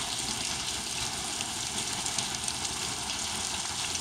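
Steady rain falling: an even hiss.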